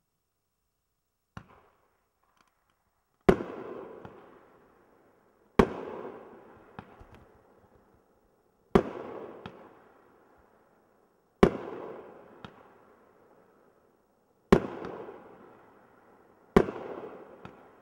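Seven-shot consumer fireworks cake firing: a small pop about a second in, then six loud bangs two to three seconds apart, each trailing off in a rumbling echo, with a few smaller cracks between them.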